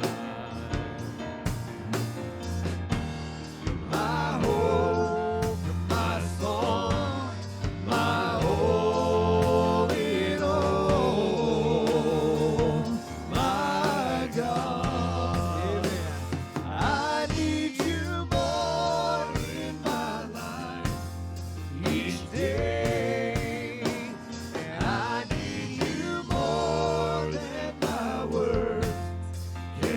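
Live worship music: voices singing a slow gospel praise song over a band with drums and a steady bass.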